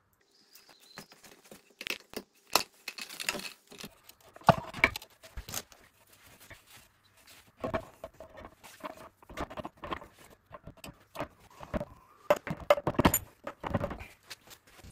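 Irregular metallic clinks, knocks and scrapes from a ZF dogbox's aluminium bellhousing being worked by hand onto an engine block. They come in three clusters with quieter gaps between.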